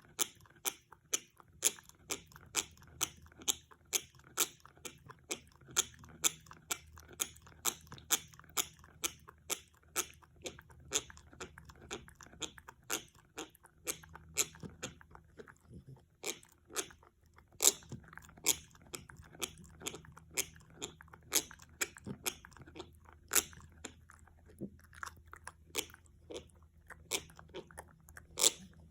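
French Bulldog gnawing an antler: a rapid run of hard crunching clicks as its teeth grind on the antler, about two to three a second, with a couple of brief pauses.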